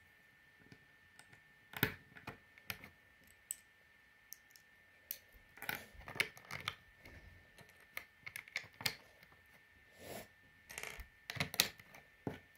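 Plastic Lego bricks clicking against each other and being pressed onto a baseplate, in irregular clusters of small sharp clicks with quiet gaps between them.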